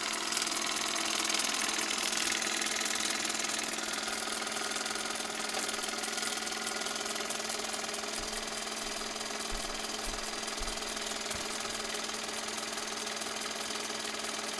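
Minolta Autodual 8 Dual 8 movie projector running steadily after being switched on: a constant whirr of the motor and fan with a rapid mechanical clatter from the film transport. The projector has freshly replaced belts and runs smoothly.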